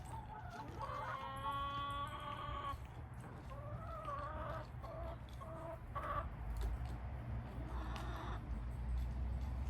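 Hens clucking and calling: one long drawn-out call about a second in, then several shorter calls.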